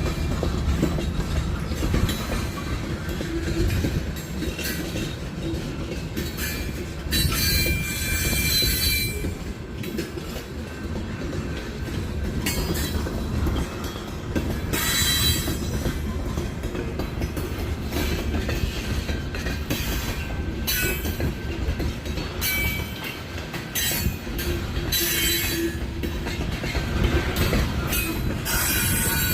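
Train cars rolling past with a steady low rumble and wheel clatter, broken several times by short bursts of high-pitched wheel squeal.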